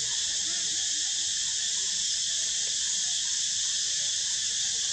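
Steady, high-pitched chorus of forest insects droning without a break.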